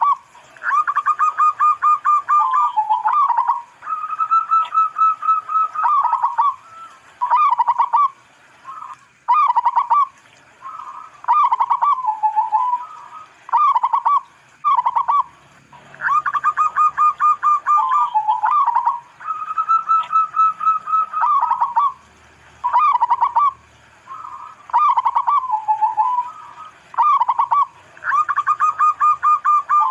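Zebra dove (local perkutut) cooing: phrases of rapid pulsed coos, some held on a higher note, repeating every couple of seconds with short gaps.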